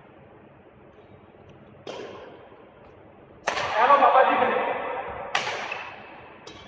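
Badminton rackets striking a shuttlecock in a rally: three sharp hits about two seconds apart, each echoing in the large hall. A person's voice follows the second, loudest hit.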